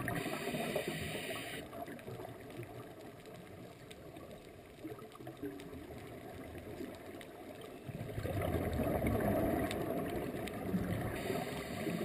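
Muffled underwater bubbling and rumble of a scuba diver's exhaled breath. It is louder for the first couple of seconds, dies down, and comes back about eight seconds in.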